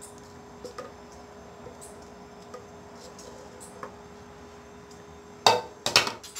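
Faint scattered ticks over a steady hum, then near the end two loud clattering clinks of kitchen utensils, about half a second apart.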